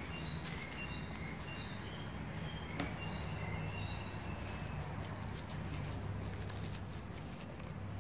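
Small birds chirping in short high notes in the background, with soft crinkling clicks from a plastic bag as marigold flowers are picked out and handled, over a low steady hum.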